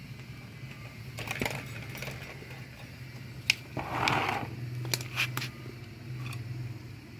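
Sharp clicks and taps, with a short crunching rasp about four seconds in, from hands working split bamboo skewers with pliers, over a steady low hum.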